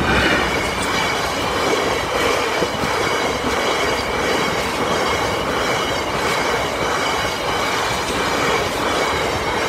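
Freight train passing close by: the Class 66 diesel locomotive goes by at the start, then a long rake of bogie hopper wagons rolls past with a steady rumble of wheels on the rails and a faint high squeal from the wheels.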